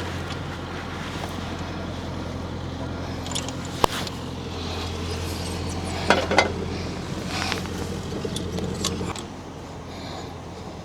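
Metal tools and hydraulic fittings clinking while a tee is fitted into an excavator's boom hydraulic line: a sharp clink about four seconds in and two more about six seconds in, over a steady low hum that stops near the end.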